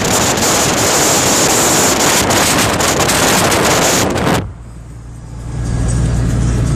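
Wind buffeting on the microphone inside a moving car with its big sunroof open, loud and gusty. About four seconds in it drops abruptly to the quieter low drone of the car's road noise, which then builds up again.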